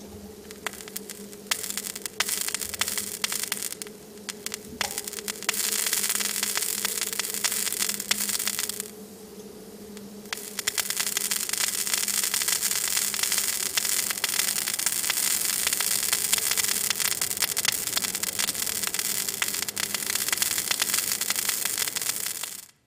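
Hissing, crackling noise with a faint steady hum, played back from the soundtrack of a projected video. It dips quieter twice and cuts off suddenly near the end.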